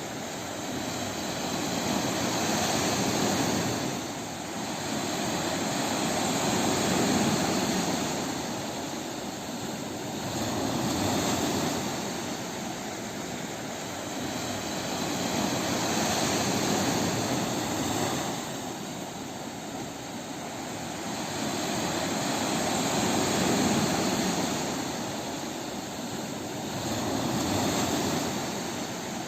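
Waves breaking on a beach: a continuous wash of surf that swells and ebbs about every four seconds.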